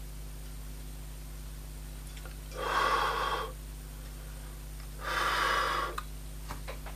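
A person breathing out heavily twice, each breath lasting about a second, over a low steady electrical hum.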